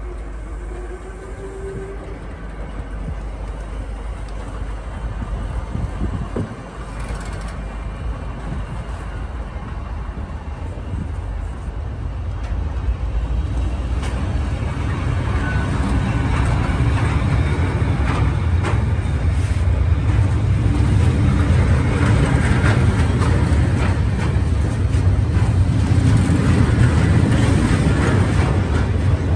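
Freight train of flat wagons loaded with long steel rails passing close by: a steady rumble and rattle of wheels on the track that grows gradually louder.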